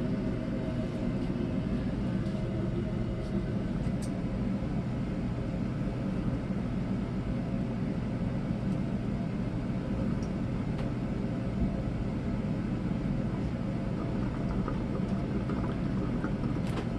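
Steady low rumble with a constant hum, unchanging throughout.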